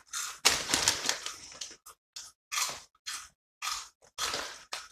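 Close-up crunching of dry, crunchy bacon-style crisps being chewed: a quick run of irregular crackly crunches with short gaps between them.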